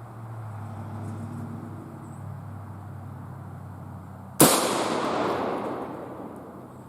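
A single rifle shot from a Marlin 336 lever-action in .30-30 Winchester, about four seconds in: a sharp crack followed by a long echo that dies away over about two seconds. A faint steady low hum runs underneath.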